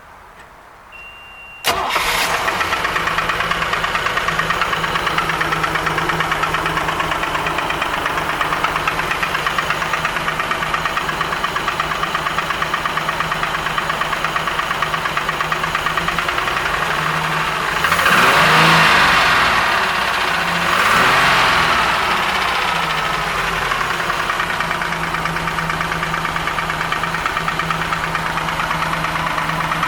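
Pontoon boat engine starting after a short beep, then idling with a rapid, regular knock. It is revved up twice and falls back to idle. The knock is the engine fault the boat came in for.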